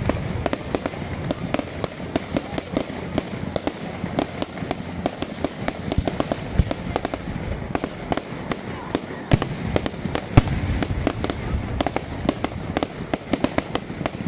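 Large bonfire of burning wooden pallets crackling and popping with many irregular sharp snaps, and a couple of louder cracks about six and a half and ten seconds in.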